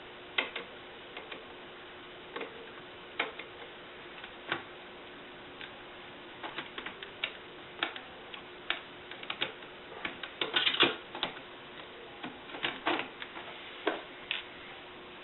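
Irregular light clicks and taps from a small screwdriver working screws out of a laptop display's side brackets, with handling of the lid. There is a quick flurry of clicks about ten seconds in.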